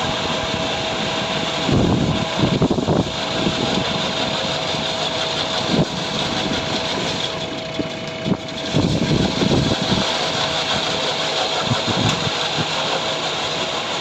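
Concrete road paving machine running, its poker vibrators immersed in fresh concrete, giving a steady mechanical hum with a constant tone. Several irregular low rumbling surges rise over it, around two and nine seconds in.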